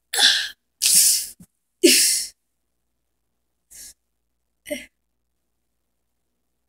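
A girl's breathy gasps: three loud ones in quick succession in the first two seconds, then two faint short breaths a little later.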